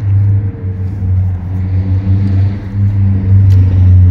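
An engine running steadily at idle: a low, even hum that swells slightly louder near the end.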